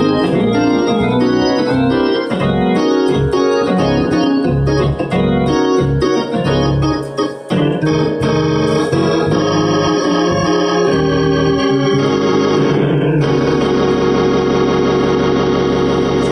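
Two-manual Hammond console organ played with both hands: a run of changing chords, then, about thirteen seconds in, one full chord held steadily.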